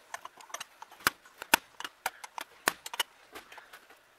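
Irregular sharp metallic clicks and taps as a small wrench is worked on a brass vacuum-advance port fitting being screwed into a carburetor throttle body, a few of the clicks much louder than the rest.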